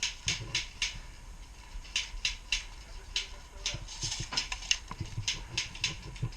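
Airsoft guns firing single shots: sharp clicks, mostly in quick runs of two or three about a third of a second apart.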